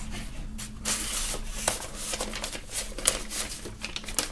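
Paper rustling and scraping as a vinyl record in its white paper inner sleeve is slid into its cardboard album jacket, with a few short sharp clicks along the way.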